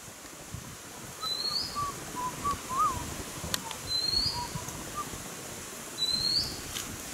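Wild birds calling: one bird gives a short rising whistle three times, a couple of seconds apart, while softer, lower short notes from another bird run between them.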